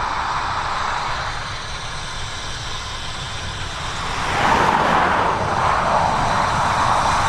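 Narrow-gauge steam locomotive working toward the listener, its exhaust chuffing and growing louder about four seconds in.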